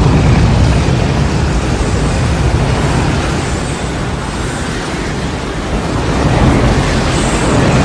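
Tornado sound effect: loud, continuous rushing wind with a deep low rumble, easing a little midway and swelling again near the end.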